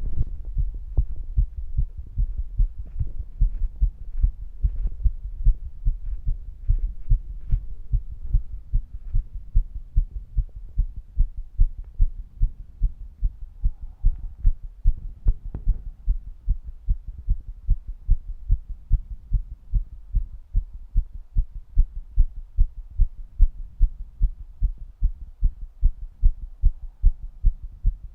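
A human heartbeat picked up close to the chest: a steady, regular series of low thumps. Faint scratchy rustles sit over the beats for the first several seconds.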